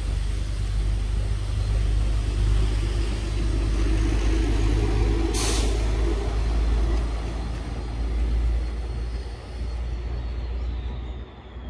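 A heavy motor vehicle's low engine rumble, with a short sharp hiss of air about halfway through, then fading near the end.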